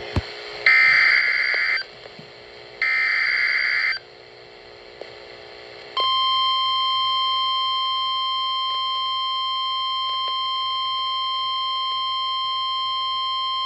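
Emergency Alert System header: two harsh, buzzing SAME data bursts about a second each, then about six seconds in a steady single-pitch NOAA Weather Radio alert tone begins and holds. It signals that a weather warning broadcast is about to follow.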